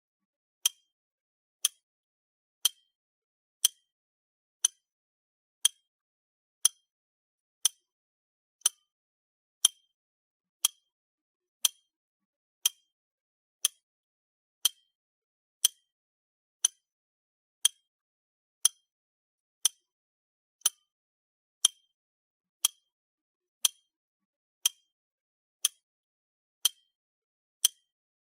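Clock ticking steadily once a second, each tick a sharp, identical click.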